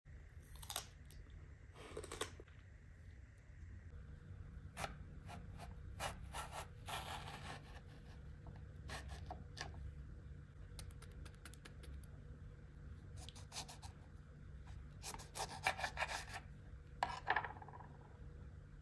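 A kitchen knife cutting a cucumber lengthwise and halving a lemon on a wooden board: scattered crisp cuts, scrapes and taps of the blade against the wood, coming thickest and loudest near the end. A steady low hum runs underneath.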